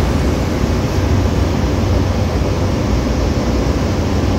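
Steady engine and propeller drone heard inside the cabin of a small propeller aircraft, a dense rumble with a faint steady hum above it.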